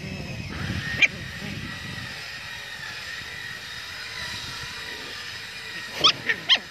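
Puppies yelping while they play-fight: one sharp, high-pitched yelp about a second in, then a quick string of three or four yelps near the end.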